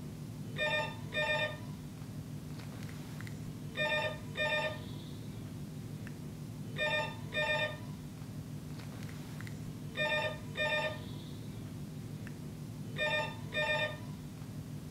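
Desk telephone ringing in the British double-ring pattern: two short rings about half a second apart, repeating about every three seconds, five times in all. A steady low hum runs underneath.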